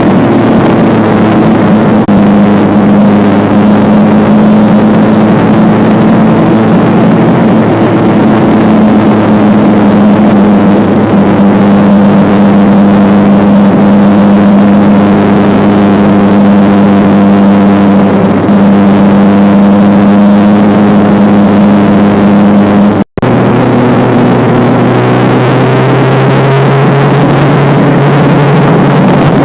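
Motorcycle engine running steadily at cruising speed on the road, its note holding level. Near the end an abrupt break leads into another stretch where the engine runs at a steady, lower pitch.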